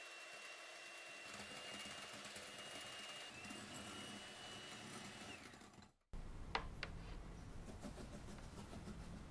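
Electric hand mixer running steadily with a high motor whine as its beaters whip egg whites in a glass bowl; the whine rises slightly about three seconds in, then stops. After a brief break, sugar is poured into the bowl, with a couple of short sharp sounds near the start of the pour.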